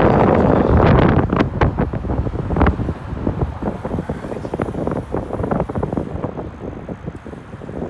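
Wind buffeting the microphone of a camera carried on a moving bicycle, strongest in the first second or so. After that come frequent irregular knocks and rattles as the bike rolls over cracked pavement.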